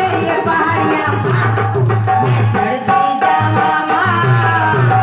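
Bhajan-style devotional music: a melody over a pulsing bass beat, with shaker percussion running through it.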